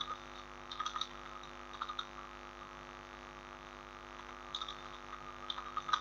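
Steady electrical hum, with a few soft computer keyboard clicks in small groups as a word is typed.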